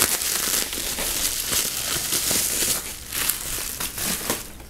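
Plastic bubble wrap crinkling and rustling as it is pulled off a lightsaber hilt, with many sharp crackles, thinning out near the end.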